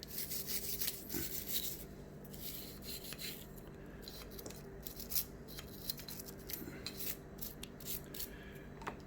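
Nylon brush scrubbing the grooves and extractor of a pistol slide, a Smith & Wesson M&P Shield's, in short, irregular brushing strokes.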